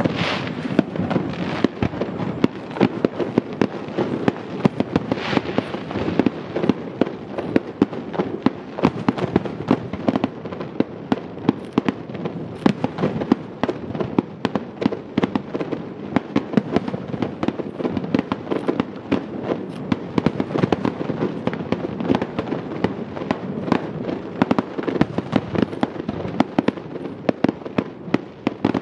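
Aerial fireworks bursting in a rapid, unbroken barrage of pops and bangs, several a second.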